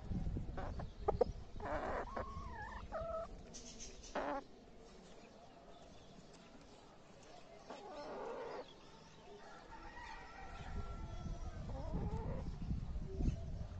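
Chickens clucking and calling in short, bending calls, several in the first few seconds, then quieter, then a few more near the end.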